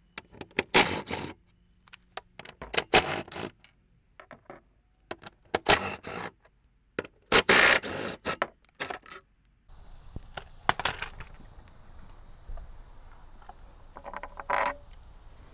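Cordless impact rattling in several short bursts as it backs out the 13 mm bolts of a spare tire carrier. After about ten seconds, a steady high insect chirring in the background, with a brief clunk near the end.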